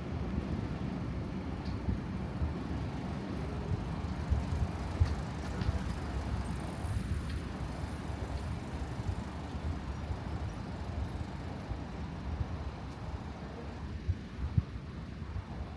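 Street ambience of traffic rumbling at night, with wind buffeting the microphone in uneven low gusts, two of them sharper, about five seconds in and near the end.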